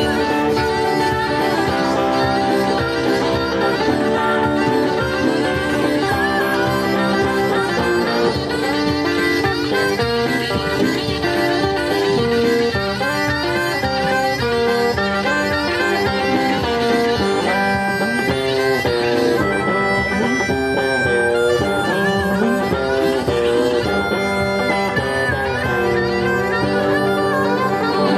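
Blues harmonica played into a vocal microphone, carrying the melody over electric guitar accompaniment in live band music.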